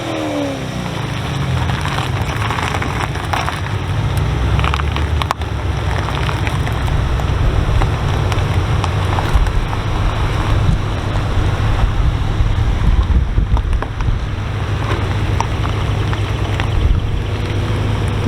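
Car engine revs falling away at the start, then a steady low engine rumble, with wind buffeting the microphone.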